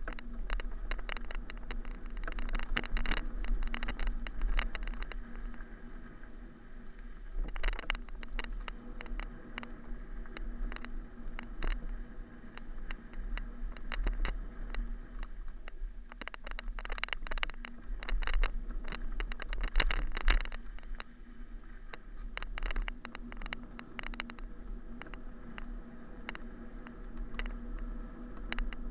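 Dense, irregular rattling and clatter from a small action camera jolting over rough ground, over a steady low rumble of wind on the microphone and a faint constant hum.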